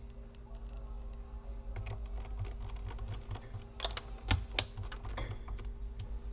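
Plastic bottom cover panels of a Dell Latitude E4310 laptop being slid and pressed into place: a run of small plastic clicks and taps, with a few sharper clicks about four seconds in.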